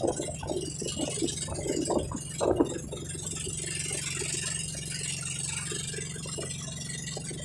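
Outrigger boat's engine running steadily underway, a constant low drone, with wind and water rushing past. A few short louder sounds come in the first three seconds.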